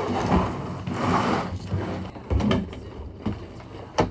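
A hard-shell suitcase being handled and packed: repeated scraping and rustling, with a few sharp knocks, the sharpest near the end.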